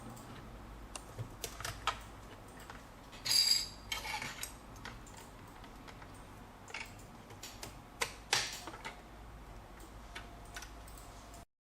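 Light plastic clicks and short rustles from hands handling and threading a small plastic mini sewing machine, with a brief louder scrape of thread being pulled a few seconds in and again near two-thirds of the way. The sound cuts off abruptly near the end.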